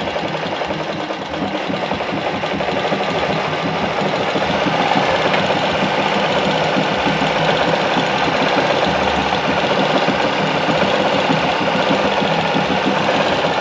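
Alfa Alfamatic 103-3 sewing machine running steadily at speed, the needle stitching in a rapid, even rhythm as it sews a disc-cam decorative pattern stitch.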